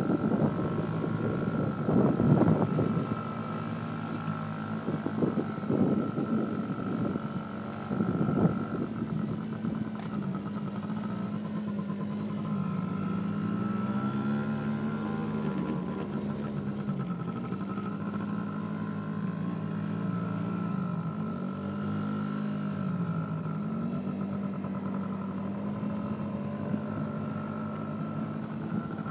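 Small youth ATV engine running as it is ridden, its pitch dipping and climbing again several times as the throttle is eased off and opened. A few brief louder rushes of noise come in the first eight seconds.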